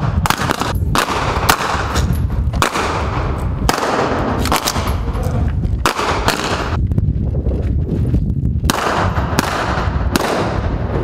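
M16/M4-type assault rifles firing blank rounds through yellow blank-firing adaptors, in irregular single shots and quick strings of several, each shot with a short echo off the concrete walls.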